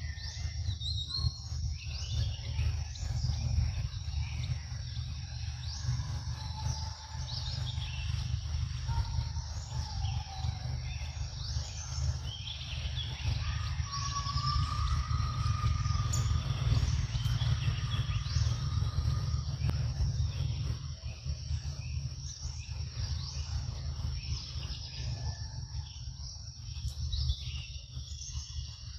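Outdoor woodland ambience: birds chirping on and off over a steady high insect drone, with a continuous low rumble underneath that is the loudest part.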